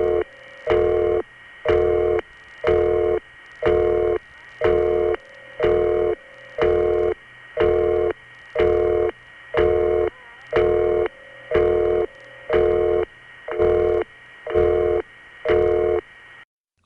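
Telephone busy-signal tone pulsing on and off about once a second over a long-distance line, cutting off abruptly near the end. It follows a recorded intercept announcement and signals that the call could not be completed.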